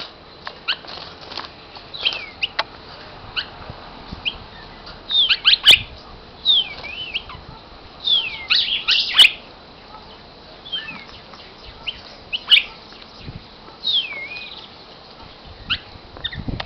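A cardinal singing in phrases of quick, sweeping whistles, each phrase a second or so long and several seconds apart, with a few sharp clicks in between.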